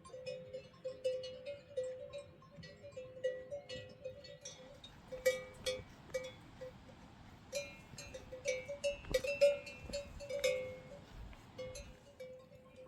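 Metal livestock bells clanking and ringing irregularly, as if on animals moving or feeding, with clusters of louder strikes about halfway through and again near the end.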